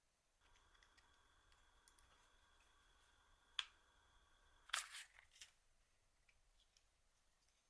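Faint, steady high electronic whine that stops with a cluster of sharp clicks and taps as a small plastic device is handled, after a single click a second earlier.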